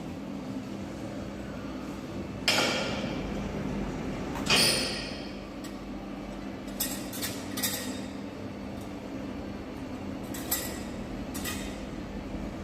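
Metal clanking: two loud knocks with a short ringing tail, then several lighter clinks, over a steady machine hum.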